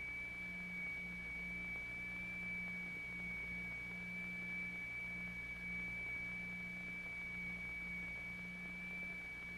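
Steady, high electronic sine tone, the audio drive for a cymatics vibration experiment, with a fainter second tone below it. Under it a low hum waxes and wanes.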